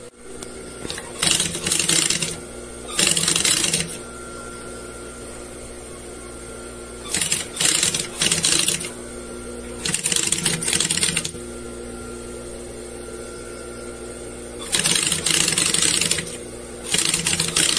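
Industrial sewing machine stitching upholstery fabric in short stop-start runs of about half a second to a second and a half each, about eight in all, with the motor humming steadily between runs.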